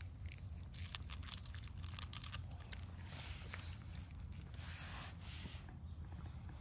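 Cat eating cat food: a run of irregular small clicks and short crunches as it bites and chews, over a steady low hum.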